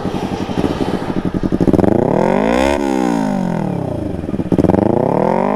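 Motorcycle engine revved through a pure-carbon DX aftermarket exhaust: a steady pulsing, then a rise in pitch to a peak about three seconds in, a drop back, and a second rev starting near the end.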